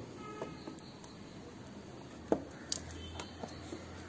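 Plastic spring clips on a Honda Activa scooter's secondary air filter housing snapping open as the top cover is released. A few sharp clicks, the loudest a little past halfway, with quieter plastic handling sounds around them.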